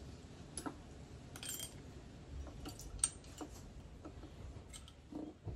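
Faint, scattered light metallic clicks and clinks of small parts being handled on a Mazda 12A rotary engine's rotor and its seals during teardown. The sharpest click comes about three seconds in, and there is a duller knock near the end.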